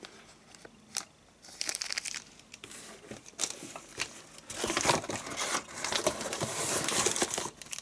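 Packaging being handled and crinkled while small model accessories are taken out, with many small clicks and rustles, quiet at first and busier and louder from about the middle on.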